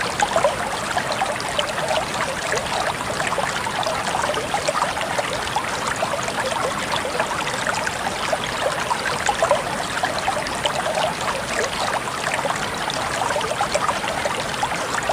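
Water flowing and trickling steadily, a constant babbling with many small splashes.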